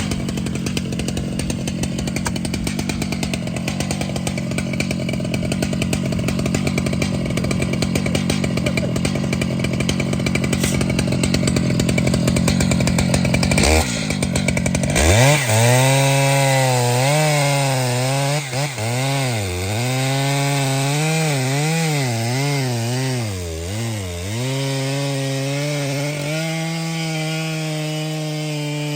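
Large chainsaw running hard in a cut through wood. About halfway through its engine note comes out clearer and keeps dipping and recovering in pitch as the chain bogs under load, then holds steady near the end.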